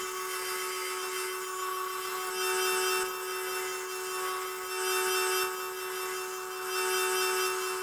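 Mower blades being sharpened on a Magna-Matic blade grinder: a steady motor hum under a grinding rasp that swells three times as the blade is passed across the wheel.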